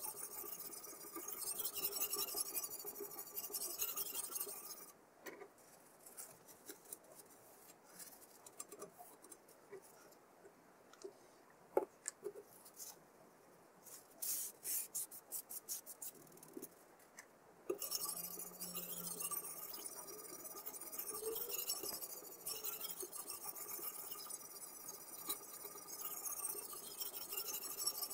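Sharpening stone of a guided knife-sharpening system rubbing along the edge of an M390-steel chef knife in a continuous rasp. About five seconds in, the rubbing stops, leaving scattered light clicks and taps; the rasping resumes about eighteen seconds in.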